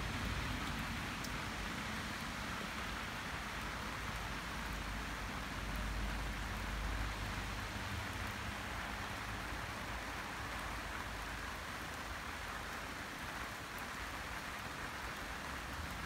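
Steady rain falling, an even hiss of rain on grass and the ground outdoors, with a low rumble underneath that swells about six seconds in.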